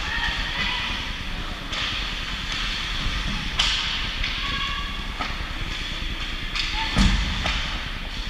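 Steady hiss of game ambience with faint crowd voices, a sharp knock about three and a half seconds in and a louder thud near the end.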